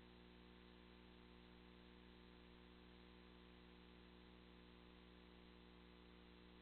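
Near silence: a faint, unchanging electrical hum with a low hiss.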